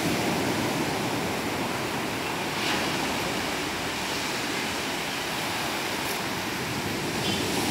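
Surf of a rough sea: large waves breaking and foam washing up the beach in a steady, even rush of water.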